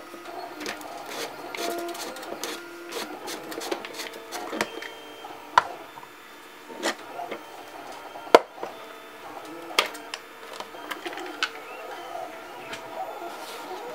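Irregular clicks and knocks of hard plastic and metal parts being handled and fitted together: a lens, a projector housing and a tripod ball head. A few sharper knocks stand out, the loudest about eight seconds in.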